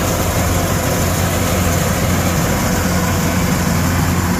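Kubota DC-108X combine harvester running steadily under load as it cuts and threshes rice: a constant low engine drone with an even rush of machinery noise over it.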